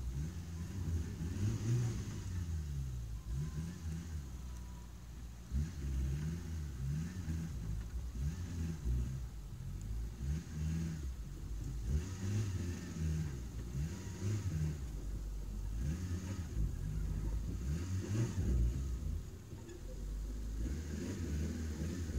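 Suzuki Samurai's engine pulling the 4x4 slowly over a rough dirt track, its revs rising and falling again and again as the throttle is worked over the bumps.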